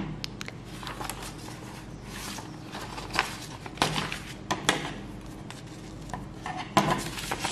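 Sheet of paper rustling and crinkling as it is handled and turned over, with sharp metallic clicks of small scissors snipping sewing thread, the loudest near the end.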